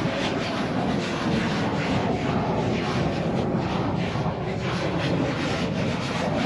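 Wind and water noise, with a distant engine passing, its pitch slowly falling.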